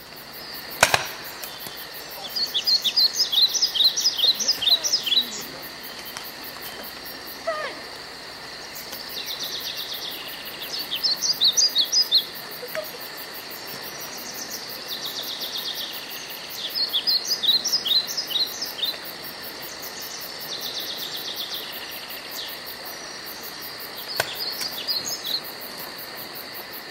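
Songbird singing outdoors: quick runs of short, high notes alternating with buzzy trills, a phrase every few seconds. A single sharp pop of a paintball marker about a second in.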